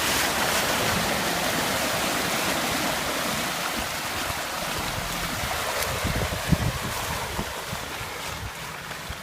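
Steady rushing and splashing of water, easing slightly, with a few dull knocks about six seconds in.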